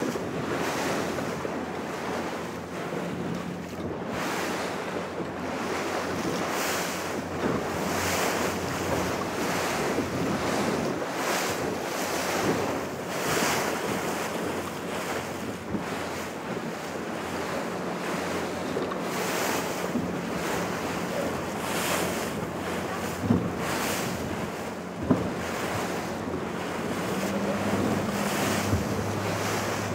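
Wind buffeting the microphone over choppy ocean waves on an open zodiac boat, with the outboard motor idling as a low steady hum underneath. Two sharp knocks about two seconds apart near the end.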